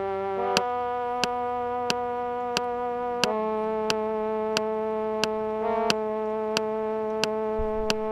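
M3000 Ultimate Edition app playing held notes from an iPad keyboard, changing pitch twice, with a brief stray wrong note a little after halfway, over a recording metronome clicking about one and a half times a second. The notes cut off at the end.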